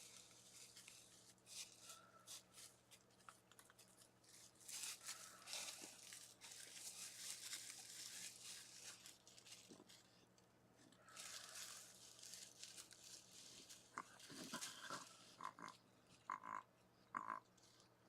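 Faint, irregular scratching and rustling, with a few short squeaks near the end.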